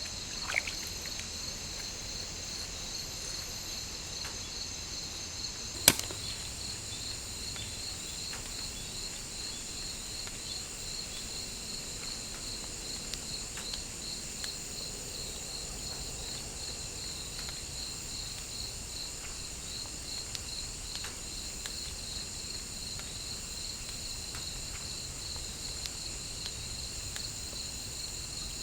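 Forest insect chorus: several high, steady trills layered together, one of them pulsing evenly. A single sharp click cuts through about six seconds in.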